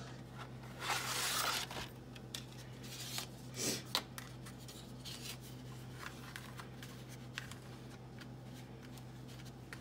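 Dry lasagna noodles being pulled from their cardboard box and packaging, with a loud rustle about a second in and a shorter one near four seconds, then light clicks and taps as the stiff sheets are laid and pressed into an aluminium foil pan.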